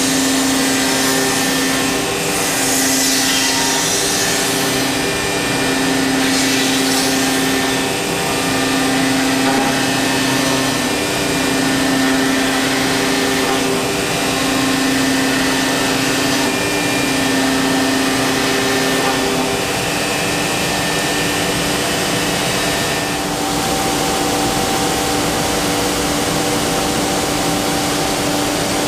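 Busellato Jet Optima C21 CNC machining centre running as it machines a wooden door: a steady spindle tone over a loud rushing noise, the tone dipping briefly about every two seconds, then changing pitch about three quarters of the way through.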